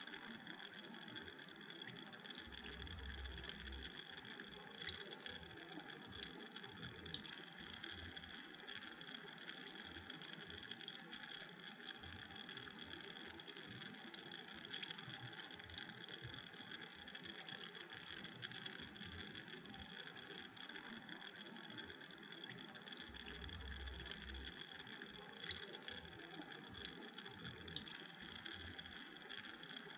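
Carbonated drink fizzing: a steady, dense crackle of tiny bubbles popping at the surface.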